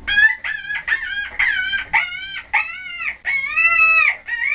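An animal giving a rapid series of short, high-pitched cries, about two a second, with one longer drawn-out cry near the end.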